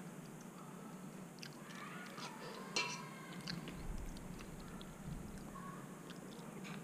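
Quiet chewing of a mouthful of multigrain oats and honey cornflakes softened in milk, with a short sharp click a little under three seconds in.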